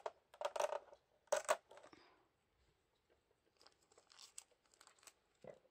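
Plastic packaging and tape being torn and crinkled by hand while a figure's parts are unwrapped: a few short rustles in the first two seconds, then fainter handling noises.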